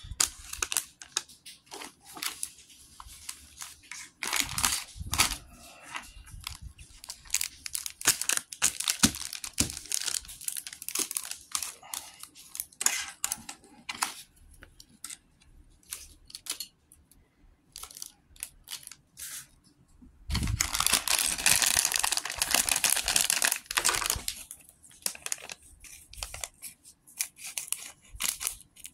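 A LEGO minifigure blind bag being handled, crinkled and torn open, with scattered clicks and crackles throughout and a louder stretch of tearing and crinkling about two-thirds of the way in.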